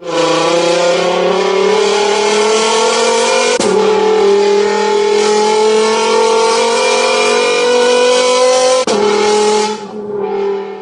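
A vehicle engine accelerating through the gears. Its pitch climbs steadily, drops abruptly at a gear change about three and a half seconds in and again near nine seconds, then fades away near the end.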